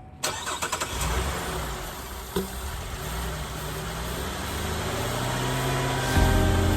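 2017 Chevrolet Traverse's 3.6-litre V6 being started and then running, a few quick pulses as it catches, then a steady run that grows louder and steps up near the end. The engine has a cylinder 2 misfire.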